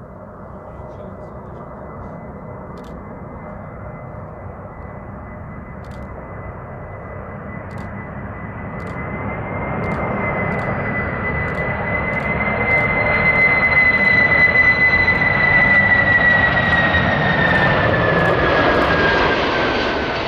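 Qantas Boeing 747-400's four Rolls-Royce RB211 turbofans on final approach, getting steadily louder as the jet comes in and passes close by. A steady high engine whine sits over the jet noise and slides down in pitch near the end as the aircraft goes past.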